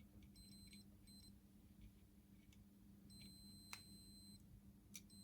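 Continuity tester beeping faintly while the foot switch's two metal contacts are touched: two short beeps in the first second, one longer beep of over a second about three seconds in, and another at the very end, with faint clicks in between. The beep sounds whenever the contacts close the circuit, showing that the switch itself makes contact.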